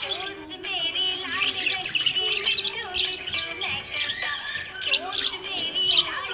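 Budgerigars chirping and warbling in a rapid, continuous stream of short calls.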